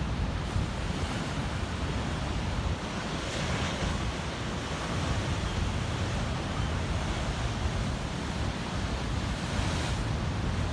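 Pacific surf crashing and washing against coastal rocks, with a steady low rumble of wind buffeting the microphone. A wave surges up a few seconds in.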